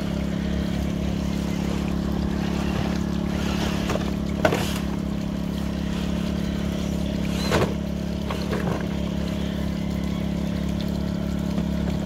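Portable petrol generator running with a steady, even drone. Two short sharp knocks stand out, one about four and a half seconds in and one about seven and a half seconds in.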